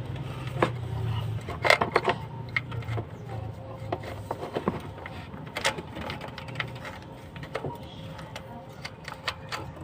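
Irregular clicks and light metallic knocks of hand tools being worked on metal, over a low hum that fades after about three seconds.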